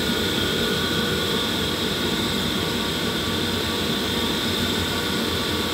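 A steady whooshing drone with a few faint steady tones running through it, unchanging throughout: a constant machine or airflow noise.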